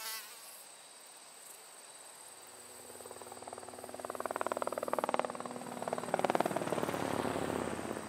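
Helicopter flyby sound effect: a rapid, even rotor chop swells in from about three seconds in and stays near its loudest toward the end, after a mosquito buzz trails off at the start.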